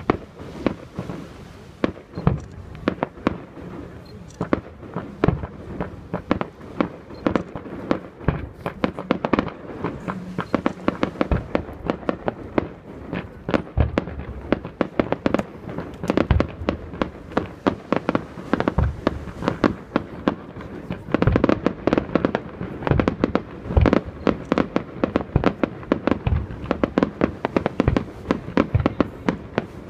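Fireworks display: a rapid, continuous run of bangs and crackling reports, several a second, growing denser and louder about two-thirds of the way through.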